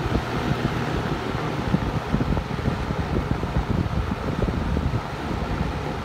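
Early-1970s Windsor (Lakewood) model C-14 14-inch metal-bladed box fan with its GE motor running, a steady rush of air with low fluttering from the airflow hitting the microphone. A brief click comes right at the start.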